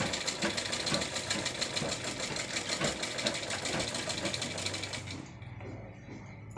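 Domestic sewing machine stitching a seam along the edge of a piece of fabric: a fast, even clatter of the needle mechanism that stops about five seconds in.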